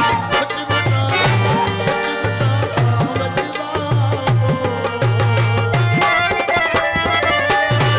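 Instrumental break of a live Punjabi folk song: dholak drumming, with repeated deep bass strokes that bend in pitch and sharp higher slaps, over sustained harmonium notes.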